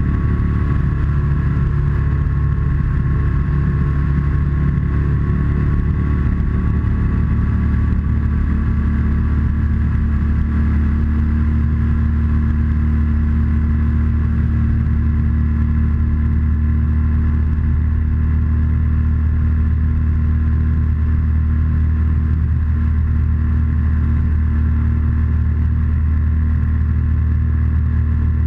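BMW R1200C's boxer twin engine running steadily as the motorcycle cruises along the road, with wind and road noise. The engine note shifts slightly about six seconds in.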